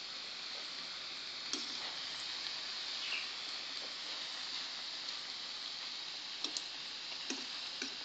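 Dough pastries deep-frying in hot oil in a pan, a steady sizzle. A few light clicks of a metal fork against the pan come as the pieces are turned, once about a second and a half in and several times near the end.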